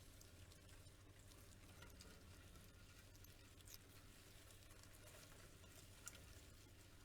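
Near silence: faint, scattered ticks and scratches from a praying mantis moving about, over a low steady hum.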